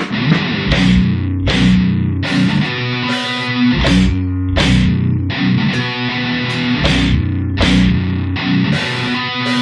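Grindcore band playing: heavily distorted electric guitar and bass riffing over drums, with a cymbal crash about every second. The full band comes in together right at the start.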